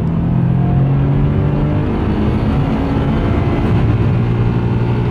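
Car engine running while driving, heard from inside the cabin, its note dropping about two seconds in.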